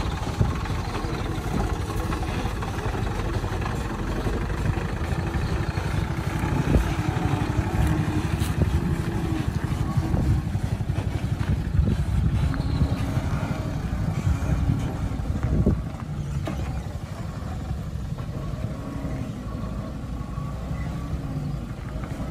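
Sugarcane-laden light truck's diesel engine running as the truck pulls slowly along a muddy, rutted dirt track, with a few knocks and clunks from the body and load. It gets a little quieter about two-thirds of the way through as the truck moves away.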